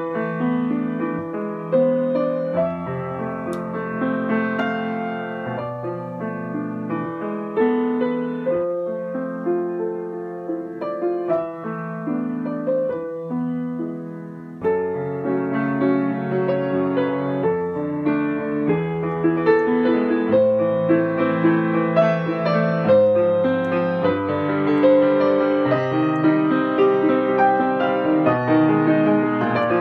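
Solo piano music, a slow melodic piece; about halfway through it gets louder and fuller.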